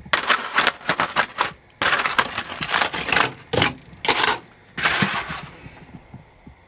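Aluminium foil crinkling and crackling in bursts as a foil cover is pulled off an aluminium loaf pan, with small clicks of metal tongs mixed in; it stops about five and a half seconds in.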